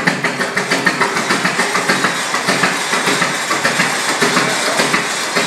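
Avery 40-80 tractor's 24.7-litre four-cylinder kerosene engine running with a quick, even beat.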